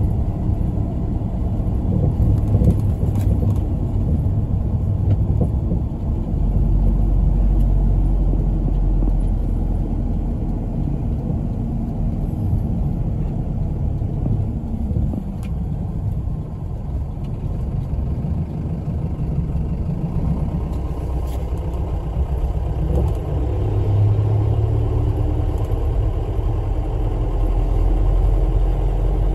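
Engine and road noise of a community route bus, heard from inside its cabin as it drives: a steady low rumble whose pitch shifts now and then.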